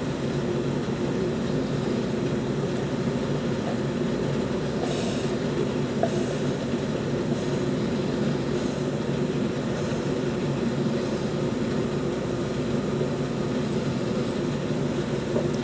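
A steady mechanical hum with several fixed tones, with faint gulps about once a second in the middle as a man drinks a glass down in one go.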